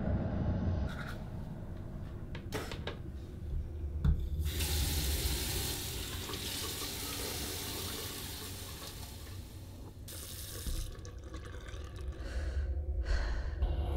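Bathroom tap running into a sink, turned on about four seconds in and shut off about six seconds later, with a brief second run just after. A sharp knock comes just before the water starts, among a few small clicks.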